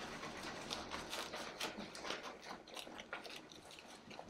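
Hands scrubbing shampoo lather into a Bernese mountain dog's wet, thick coat: faint, irregular squelching and crackling of foam.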